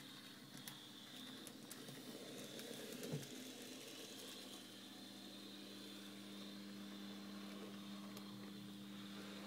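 Model Pacific steam locomotive running on a model railway: a faint steady electric-motor whine and hum, with light clicks from the wheels over the track in the first couple of seconds and a brief louder bump about three seconds in.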